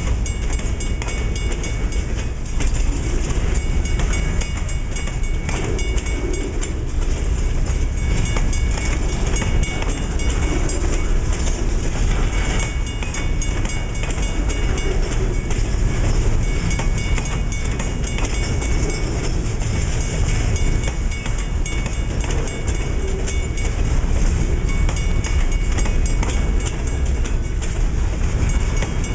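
Loaded bulkhead flatcars of a freight train rolling past at close range: a steady rumble of steel wheels on the rails, with repeated clacking as the wheels cross rail joints.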